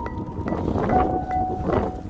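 Background music with sustained piano-like notes over low wind noise on the microphone.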